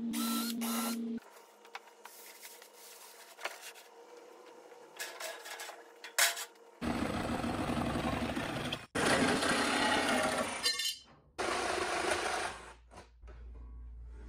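A cordless drill spins briefly and stops about a second in, followed by a few light handling clicks. Then a Milwaukee cordless jigsaw cuts through thin sheet metal in three runs, stopping twice for a moment.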